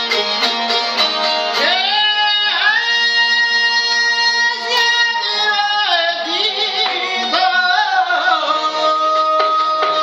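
A man singing an Albanian folk song over several long-necked plucked lutes played in a fast, even rhythm. The voice comes in about a second and a half in with long held, wavering notes and drops out near the end, leaving the strings.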